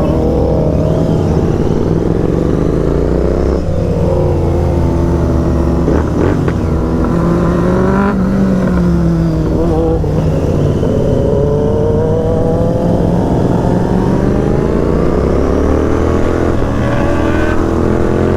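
Motorcycle engine accelerating hard up through the gears, its pitch climbing and then dropping back at each gear change, several times over.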